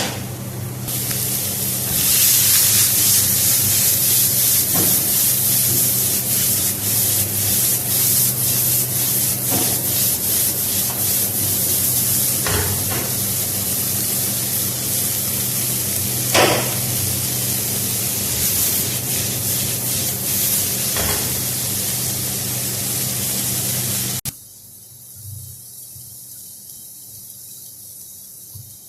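Food sizzling in a hot frying pan: a steady loud hiss with scattered small pops over a low steady hum. It cuts off abruptly about 24 seconds in, leaving a much quieter stretch.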